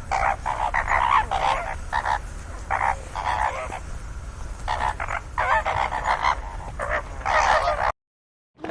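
An animal calling in a run of short, repeated croaks or honks, in quick clusters with brief pauses, that cut off suddenly near the end.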